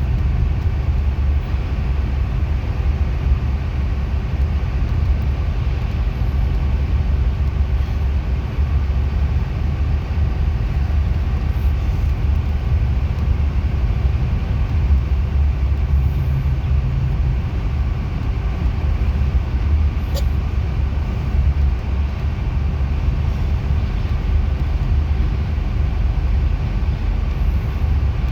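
Steady low rumble of a bus in motion, engine and road noise as heard from inside the bus, with a single light click about twenty seconds in.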